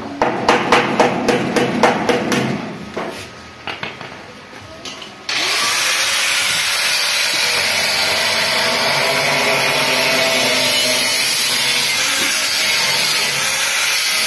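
A rapid series of about a dozen hammer strikes on the steel door's fittings, tapering off, then about five seconds in a handheld electric power tool starts abruptly and runs steadily with a loud hiss.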